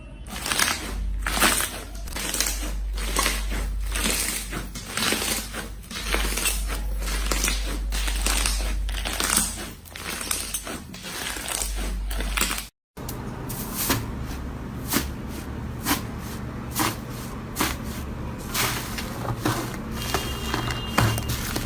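Close-up crunching and crackling: many irregular sharp clicks over a low steady hum, breaking off abruptly about thirteen seconds in and going on after as more spaced clicks.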